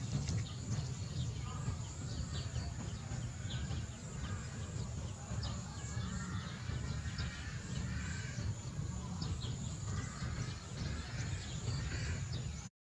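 Outdoor ambience: a steady low rumble with faint, scattered bird chirps and a few soft wavering calls. The sound cuts out briefly at the very end.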